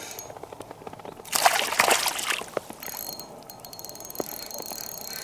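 Water splashing for about a second, then the steady fine whir of a spinning reel being wound in.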